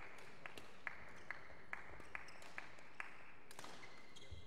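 Evenly spaced sharp claps, a little over two a second, echoing in a large sports hall. They stop about three seconds in.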